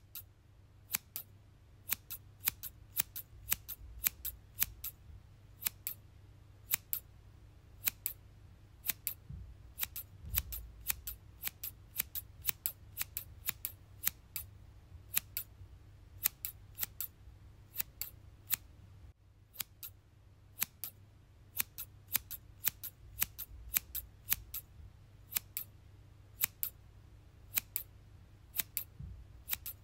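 Scissors snipping again and again, each cut a sharp crisp click, at an uneven pace of one to three cuts a second, with a short pause about two thirds of the way through.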